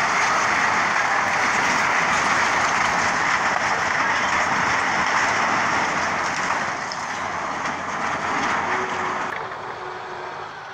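Crawler bulldozer working, a steady broad noise of its diesel engine and tracks. The noise drops about nine seconds in, leaving a faint low engine hum.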